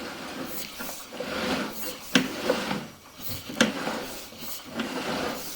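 Rubbing and scraping with a few sharp knocks, from a sewer inspection camera's push cable being fed by hand down the main line.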